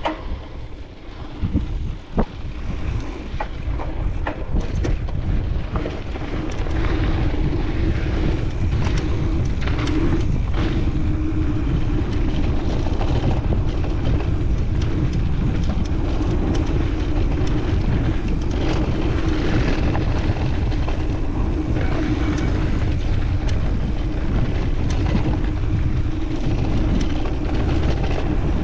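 Mountain bike rolling down a dirt trail, heard through wind buffeting a chest-mounted GoPro. In the first few seconds there are sharp knocks and rattles from the bike over bumps. From about six seconds in, the wind and rolling noise is loud and steady.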